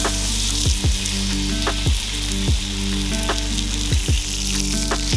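Thick tomahawk steak sizzling loudly as its edge is seared on a hot grill pan, over background music with a steady beat.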